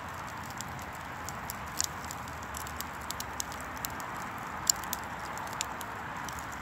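Split logs burning in a fire pit: a steady soft hiss with irregular sharp crackles and pops, the loudest about two seconds in and just before five seconds.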